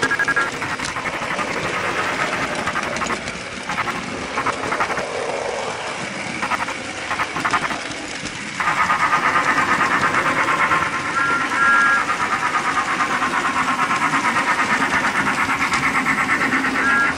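HO-scale model steam locomotive's built-in sound unit playing steam chuffing, uneven in the first half and settling into a steady fast rhythm about halfway through, with brief high tones at the start, around twelve seconds in and at the end.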